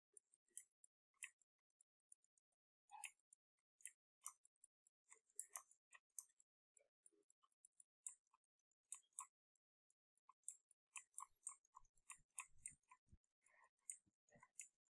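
Faint, irregular clicking from computer controls while sculpting digitally, growing busier near the end, with a few soft low thumps about twelve seconds in.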